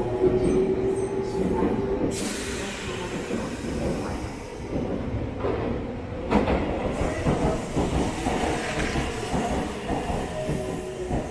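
Red Meitetsu electric commuter train pulling out of the platform, its motors and wheels rumbling on the rails as it moves off. A steady tone stops about two seconds in.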